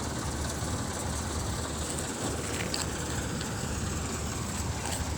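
A steady, low engine rumble under a constant hiss, with a few faint ticks.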